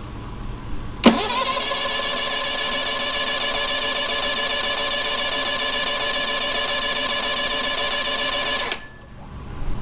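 Tohatsu MFS20E 20 hp four-stroke outboard's electric starter cranking with a steady high-pitched whine for about eight seconds, cutting off abruptly without the engine catching: the motor is not starting.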